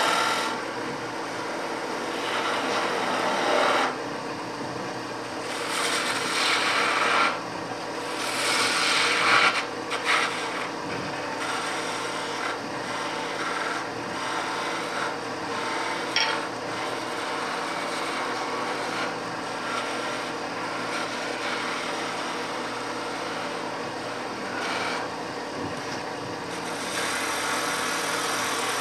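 Wood lathe running with a steady motor hum while a hand-held turning tool cuts into the spinning wood blank, the cutting hiss coming and going in passes, loudest in the first ten seconds and again near the end. A single sharp tick sounds about midway.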